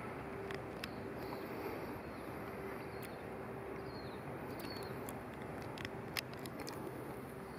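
Outdoor ambience: a steady low background rumble and hum, with a few brief high bird chirps and scattered faint clicks.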